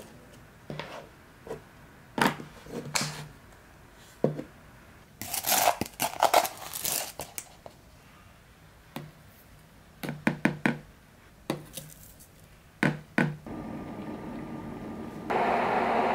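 Small knocks and clicks of an AeroPress coffee maker being assembled by hand, the filter cap fitted and the chamber set down on a glass mug, with a stretch of rustling about five seconds in. Near the end an electric kettle heating water gives a steady rushing hiss that grows suddenly louder.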